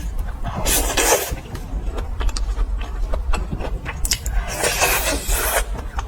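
Close-miked eating of fried skewers: chewing clicks and smacks throughout, with two longer crunching bursts, about half a second in and again about four seconds in.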